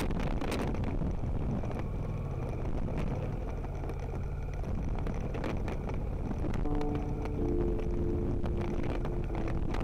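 Motorcycle running along a rough gravel track, with wind noise on the microphone and scattered knocks from the loose stony surface. A few held notes of background music come in near the end.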